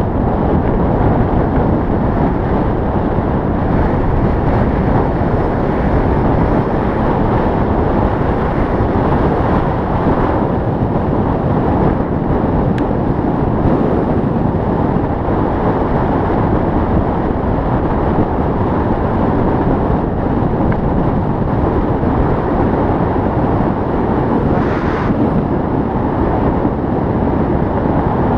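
Wind rushing steadily over the microphone of a camera carried on a moving bicycle.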